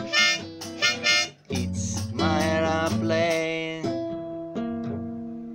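Acoustic guitar strummed under a harmonica melody played in a neck holder, in two phrases with a short gap between them. The song ends on a final strummed chord that rings and fades away.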